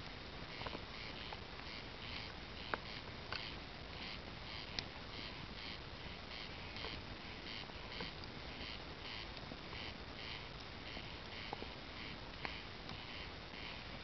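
Bonfire crackling, with a few sharp pops from the burning wood, over a steady high pulsing that repeats about three times a second.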